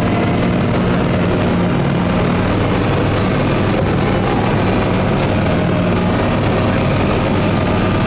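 Truck engine running steadily under way, heard from inside the cab, with a constant drone and road noise.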